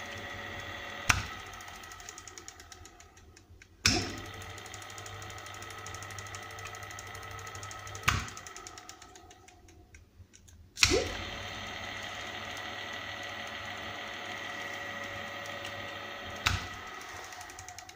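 Low-power two-speed electric motor running with a steady whine, switched by contactors. A sharp contactor clack about a second in is followed by the motor winding down, and another clack near four seconds starts it up again. The same stop-and-restart happens near eight and eleven seconds, and one more clack comes near the end.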